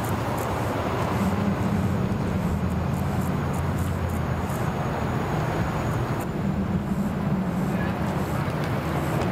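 An engine running steadily at idle: a low hum under a constant wash of noise, with no revving.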